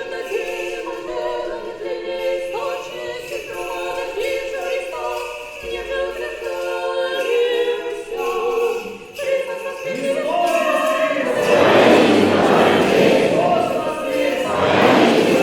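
Russian Orthodox church choir singing Paschal chant a cappella, with several sustained voices moving from note to note. About ten seconds in, the singing swells louder and fuller, with more voices.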